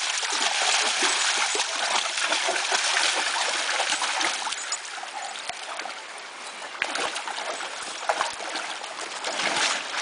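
Two young Dogo Argentino dogs wrestling in shallow river water, splashing. The splashing eases about halfway through and picks up again near the end.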